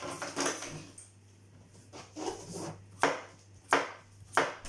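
Knife chopping on a cutting board: a few soft knocks, then three sharp, evenly spaced chops in the second half, about 0.7 s apart.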